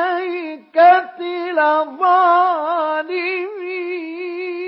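A male reciter chanting the Quran in the ornamented mujawwad style, drawing out the word 'al-Aykah' in long melodic runs with a wavering vibrato. Near the end he settles on one long held note.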